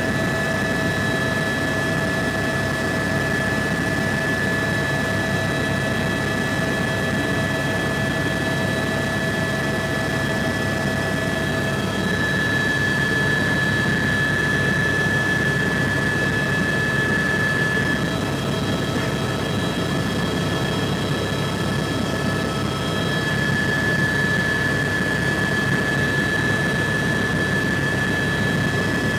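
Cabin noise of a Bell 206 helicopter in flight: the turboshaft engine's steady high whine over a dense low rumble from the rotor and airframe. The whine's tones shift slightly about 12 seconds in and again near 18 and 23 seconds.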